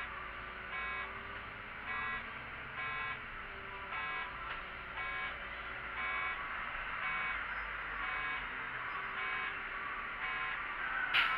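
A city bus's electronic warning beeper sounding short beeps about once a second over the bus's low running rumble. A sharp click near the end.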